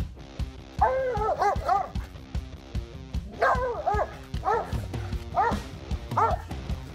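Appenzeller Sennenhund barking and yipping excitedly in high, rising-and-falling barks: a quick burst about a second in, another just past three seconds, then single barks about once a second. Background music plays throughout.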